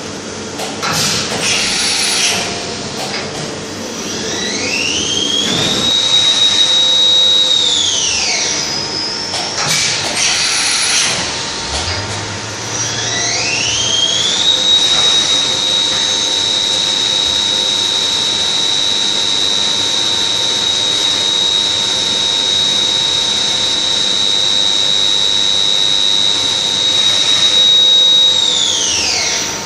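Leadwell V-50L CNC machining center running. Its spindle spins up with a rising whine, holds a steady high whine and winds down, once briefly and then again for a long run. Short bursts of mechanical clatter come between the runs.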